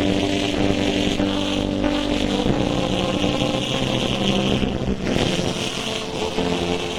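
Loud, steady noise of a vehicle on the move, with music that holds notes and changes them every second or two playing over it.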